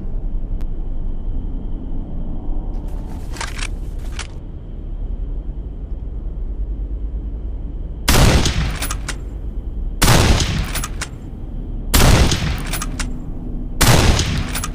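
Winchester Model 1897 pump-action shotgun: a few metallic clicks, then four shots about two seconds apart. Each shot is followed by light clicks as the action is worked.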